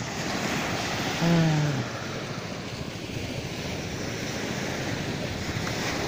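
Small waves breaking and washing up on a sandy beach, a steady wash of surf mixed with wind on the microphone. A person's voice is heard briefly about a second in.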